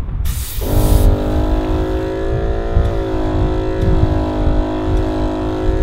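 A brief hiss of air, then a portable air compressor starts about half a second in and runs at a steady pitch, pumping a coil-spring helper airbag up to 20 psi. Wind buffets the microphone throughout.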